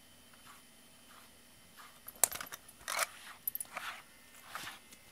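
Wire slicker brush raking through a cat's fur in short scratchy strokes, faint at first and much louder from about two seconds in, with a sharp click as the louder strokes begin.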